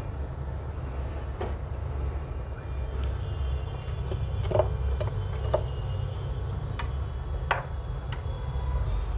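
Small hand tools clicking and tapping on a repair bench, about eight short sharp clicks spread out, the loudest about halfway through, over a steady low hum.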